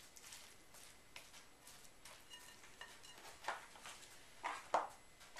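Red silicone spatula stirring and scraping a moist cauliflower-and-egg mixture in a glass bowl, faint and repeated. Near the end there are a few light knocks as the spatula is set down on the counter.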